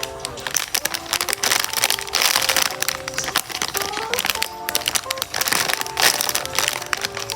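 Background music with a simple melody, over a steady stream of crinkling and crackling from squishy toys being handled in their plastic packaging.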